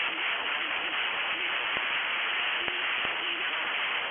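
Steady radio static hiss on a NOAA Weather Radio broadcast, with a faint wavering tone underneath and a few scattered clicks. The warning's voice has dropped out of the audio, a break typical of the stream error.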